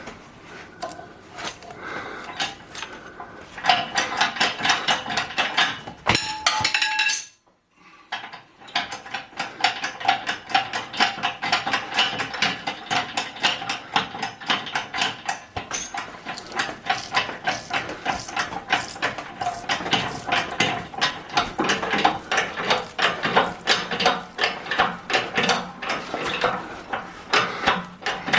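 Rapid metallic clicking and tapping, several strikes a second with a ringing tone, breaking off for about a second some seven seconds in.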